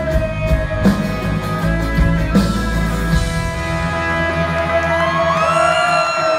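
Live rock band with electric guitars, bass and drums playing the last bars of a song. Drum hits come in the first few seconds under a held guitar chord, then high notes slide and bend near the end.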